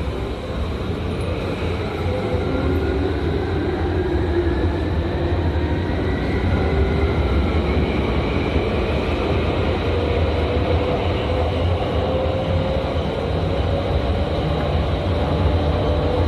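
Inside a Tokyu 8500 series electric train pulling away and gathering speed: a steady running rumble, with the whine of the traction motors slowly rising in pitch as it accelerates.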